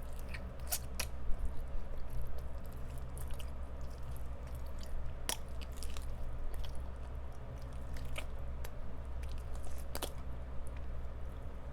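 Close-up chewing of crispy fried chicken, with sharp crunches every second or so and wet mouth sounds between, over a steady low hum from a room fan.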